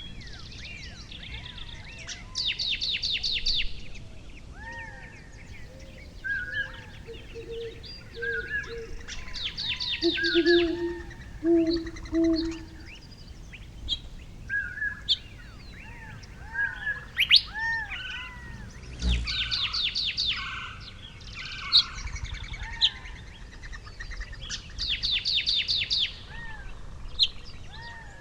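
Songbirds calling: a fast high trill of about a second and a half comes four times, with short chirps scattered throughout and a few lower notes. A single sharp knock sounds about two-thirds of the way through, over a steady low background noise.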